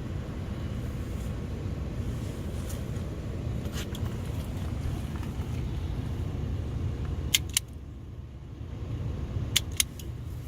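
A steady low rumble that drops away about three-quarters of the way through. Two pairs of sharp clicks come near the end, from hand tools snipping or stripping automotive wires.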